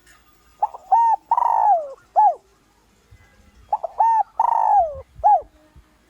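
Spotted dove cooing its song twice. Each phrase is two short coos, a long coo that falls in pitch, and a short closing coo.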